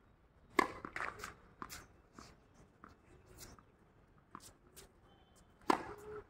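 Tennis balls being hit by a racket and bouncing on a hard court: a quick run of sharp pops in the first two seconds, a few fainter ones, and the loudest strike near the end.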